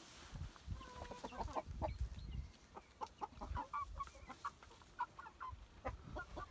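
Young Leghorn and Wyandotte chickens clucking and peeping softly while they forage, in many short separate calls.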